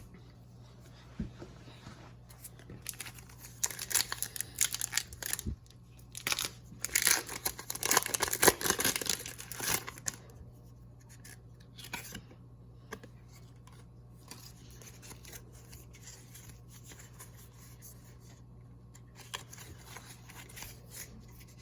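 Foil booster-pack wrapper crinkling and tearing open, a run of irregular rustles that is loudest about seven to ten seconds in, followed by quieter handling.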